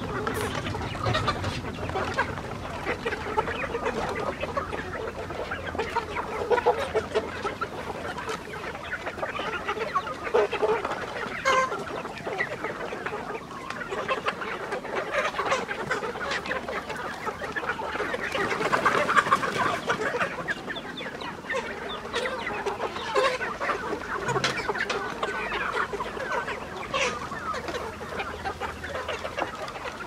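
A large flock of chickens clucking continuously around a feeder, a dense chatter of overlapping short calls, briefly louder about two-thirds of the way through. A few sharp clicks stand out.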